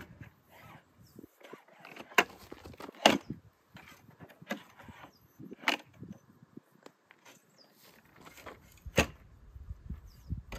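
A folding metal camping table being opened out: its legs and hinges give a few sharp clacks as they swing and lock into place, the loudest about three seconds in. A heavier knock comes about nine seconds in as the table is stood upright on the ground.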